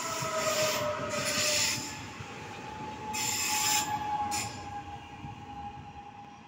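Koleje Śląskie electric multiple-unit trains moving through the station: a steady high electric whine with loud hissing bursts in the first few seconds. The sound fades toward the end.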